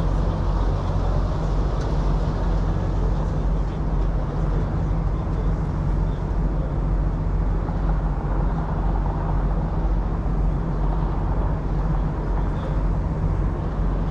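Semi truck's diesel engine idling steadily, a low even rumble with no change in speed.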